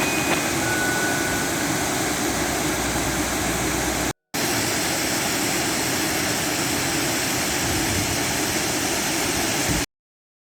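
Steady rushing noise of a moving boat, engine and wind together. It breaks off briefly about four seconds in and cuts off abruptly near the end.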